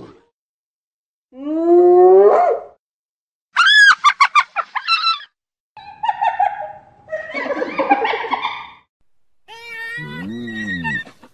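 Hyena vocalising in a series of calls: a long call rising in pitch, then a fast, high-pitched giggling run of short notes, then a cluster of mixed cackles and wavering calls.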